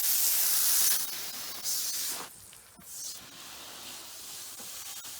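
A steady high-pitched hiss, loud for about two seconds, then dropping suddenly to a fainter hiss that carries on.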